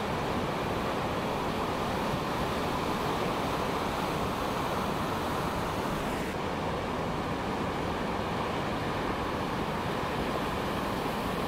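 Steady rush of ocean surf breaking along the beach, an even roar with no single crash standing out. The highest hiss drops away about six seconds in.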